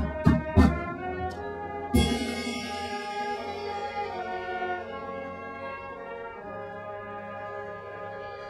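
Drum and bugle corps brass line playing sustained chords, with several loud percussion hits in the first second and a big crash about two seconds in that rings on.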